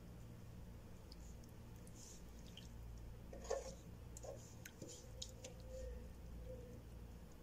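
Quiet room tone with a few faint scattered clicks and one sharper small tap about three and a half seconds in.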